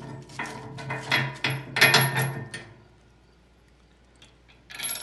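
Clinking and clattering of metal parts and tools being handled, over a steady low hum for the first two and a half seconds, then quiet until a brief rustle near the end.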